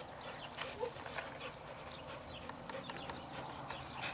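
A dog trotting on sandy dirt while carrying a rubber toy ball: scattered light ticks and scuffs of paws, with a brief faint growl about a second in.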